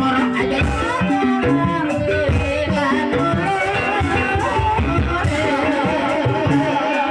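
Live Javanese ebeg accompaniment music in campursari style: a wavering sung or played melody over steady drumming.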